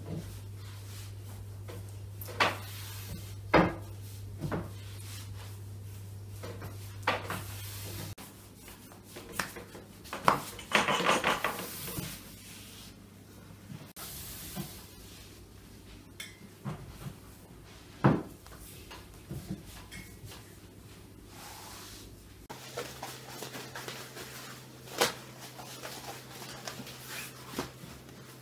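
A long thin wooden rolling pin knocking and rubbing against a tabletop as yeast dough is rolled out thin, with scattered sharp knocks and a longer rustle about ten seconds in, over a low steady hum.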